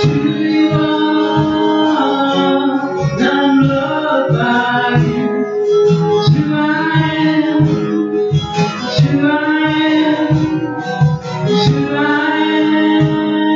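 Live worship song: a singer accompanying themselves on guitar, with a steady low beat underneath.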